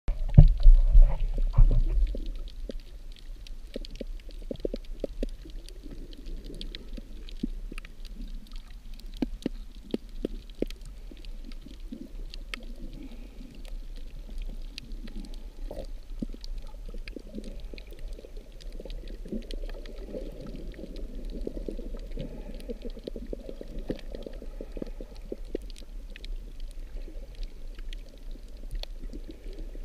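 Muffled underwater sound picked up by a camera beneath the surface over a coral reef: a steady low rush of moving water with many scattered clicks and crackles. A louder low rumble fills the first two seconds.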